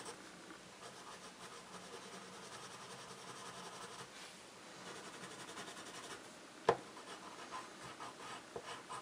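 Coloured pencil shading on paper: a faint, steady scratching of a hard, waxy pencil lead rubbed back and forth, with one sharp click about two-thirds of the way through.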